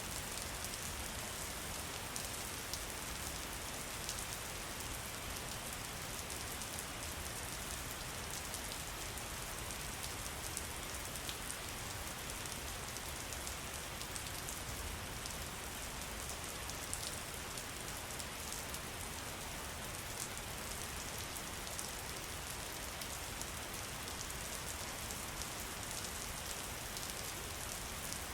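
Steady rain falling on a surface, with dense, even patter of individual drops.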